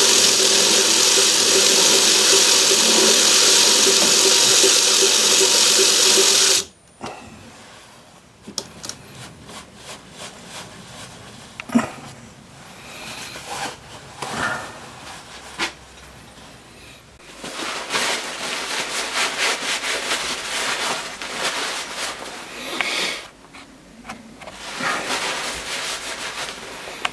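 Myford ML7 lathe running loud and steady with a few steady tones for about the first seven seconds, then stopping abruptly. After that comes intermittent scraping and rubbing of hand clean-up work on the metal part, busiest for several seconds in the latter half.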